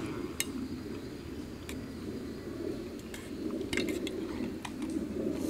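Chopsticks clicking and scraping against a pan while someone eats from it: a handful of light, scattered clicks over a steady low background rumble.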